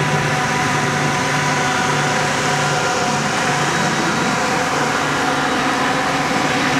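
Steady mechanical drone: several held tones that do not change in pitch, over an even hiss.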